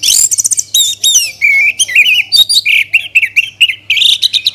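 Orange-headed thrush singing loudly: a fast, varied run of high whistled notes, quick trills and sweeping phrases.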